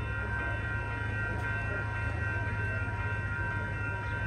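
Approaching diesel commuter train: a steady low locomotive rumble with several steady high tones held over it, unchanging throughout.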